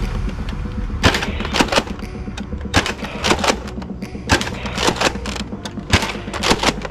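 Nerf Longshot foam-dart blaster being worked and fired: a string of about ten sharp plastic clacks and thuds at uneven intervals.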